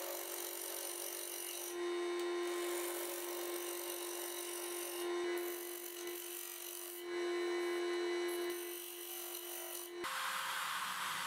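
Homemade lathe spinning with a steady motor hum while a chisel held on the tool rest scrapes a wooden sharpening wheel to even it out. The scraping swells in several bouts as the tool bites. About ten seconds in, the sound changes abruptly to a drill press running.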